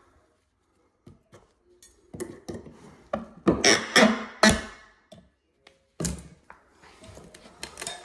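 Irregular knocks and thuds of hand work inside an opened bathroom wall, in clusters, with a sudden louder knock about six seconds in.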